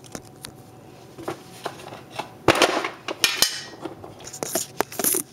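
Close handling noise: a camera being knocked and set down on a granite countertop, followed by rustling and a run of sharp clicks and knocks.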